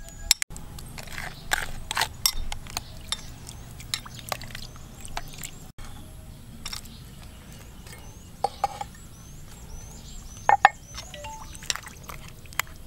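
Metal spoon stirring food in a bowl of liquid, clinking sharply and irregularly against the bowl, with splashing water.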